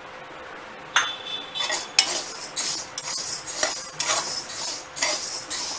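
A metal spatula scrapes and stirs wheat grains as they dry-roast in a metal kadhai, the grains rattling against the pan. The strokes start about a second in and repeat about three times a second.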